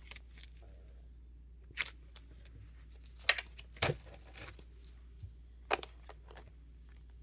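Tarot cards being handled and shuffled: a scattered series of short, crisp rustles and snaps, the loudest around the middle.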